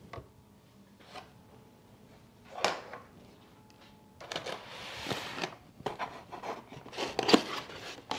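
A single light knock as the small plastic NAS enclosure is set down on a table, then cardboard rustling and scraping with small clicks as hands rummage in the box's packing compartments.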